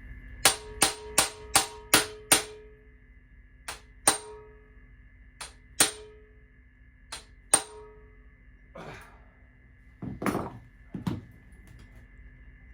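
Hammer striking a hand impact driver fitted with a Phillips bit to break loose a seized cam-cover screw: six quick sharp metallic blows, then three pairs of blows, each with a short ring. Near the end come two longer, duller knocks.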